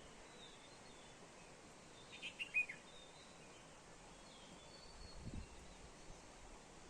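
A bird calling over steady background hiss: faint short high calls, then a loud quick cluster of falling chirps about two seconds in. A few dull low bumps follow about five seconds in.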